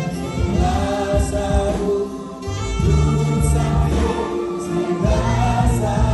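A choir singing a gospel song.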